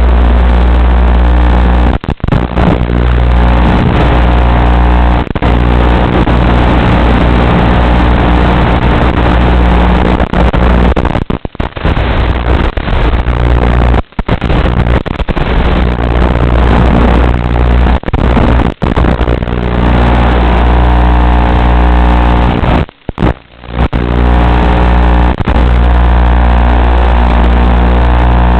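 Electric motor and propeller of a small FPV plane droning steadily, heard through the onboard camera's microphone over the analog video link. The audio cuts out suddenly several times, about 2, 11, 14, 19 and 23 seconds in.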